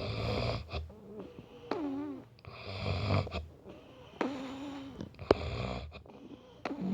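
A sleeping man snoring: rough snores come every second and a half or so, with whistling, wavering tones between them as he breathes. A sharp click sounds about five seconds in.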